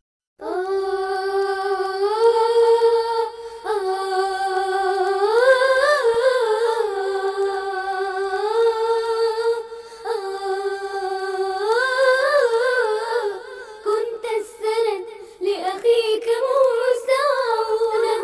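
A single high voice humming a slow, ornamented melody with no instruments, in long held phrases that break off briefly a few times.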